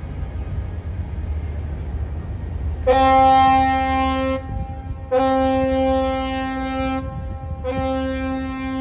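A horn sounds three long blasts on one steady pitch, each lasting one and a half to two seconds with short gaps between, over a low steady rumble.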